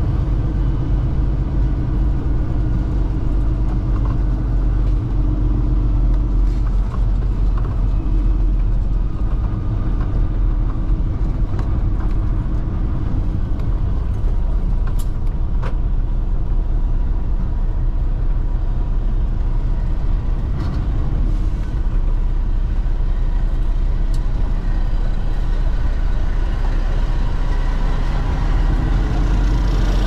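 Semi truck's diesel engine and road noise heard from inside the cab while the truck drives slowly: a steady low rumble.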